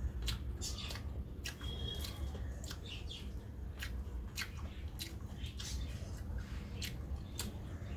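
Close-miked chewing and mouth sounds: wet clicks and smacks repeating irregularly, over a steady low hum. A brief high whistle-like tone sounds about two seconds in.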